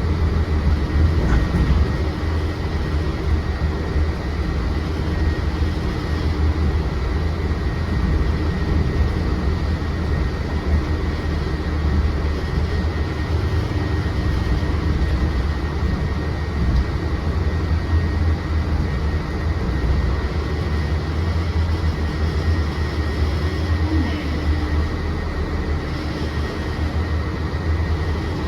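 Cabin noise inside a Mercedes-Benz Citaro C2 city bus on the move: a steady low engine and road rumble, with a thin high whine held throughout.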